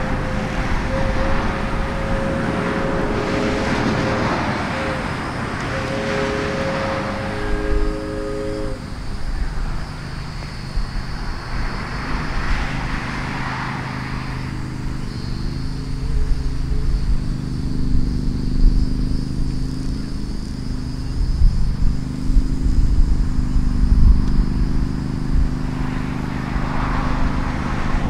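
Diesel locomotive air horn blowing a steady chord with a short break, cutting off about nine seconds in. After it, the locomotive's diesel engine runs as a low steady drone that shifts pitch a couple of times.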